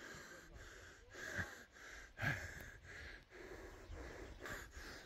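Faint, heavy breathing of a hiker out of breath climbing a steep hill, quick even breaths about two a second with a slight wheeze.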